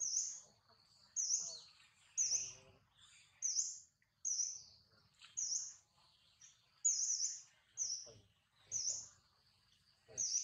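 A bird calling over and over, short high chirps coming about once a second.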